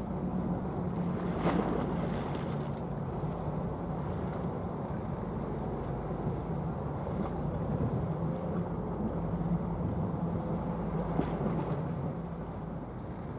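Wind on the microphone over a low, steady engine drone from a passing general cargo ship, with louder gusts about a second and a half in and again near the end.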